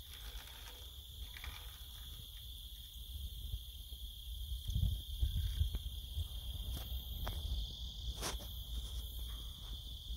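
A steady, high insect chorus with no break, under low wind buffeting on the microphone that swells about halfway through, and a few sharp clicks, the clearest a little past eight seconds.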